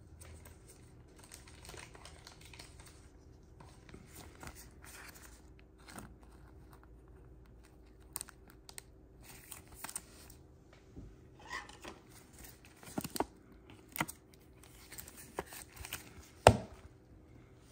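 Quiet crinkling and rustling of a soft plastic card sleeve as a trading card is slid into it and then into a rigid plastic toploader, with several sharp clicks in the second half, the loudest near the end.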